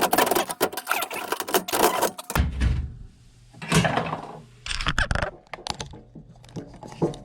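Hands working on furnace parts: rustling and clattering with many small clicks, then a few separate knocks over a low steady hum. This is the handling noise of plugging a connection back in.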